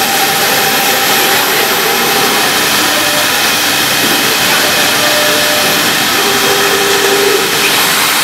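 CNC router with a linear automatic tool changer running its cut file, its spindle and axis motors making a steady, loud hissing whir with faint tones that shift in pitch now and then. The job is being advanced by turning the MPG hand wheel: the machine works only while the wheel turns.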